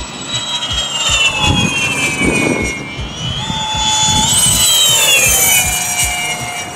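Spark RC impeller jet, an electric ducted fan on 12-cell power, whining as it flies past. The whine rises about halfway through, then drops in pitch as it goes by, loudest just after the middle.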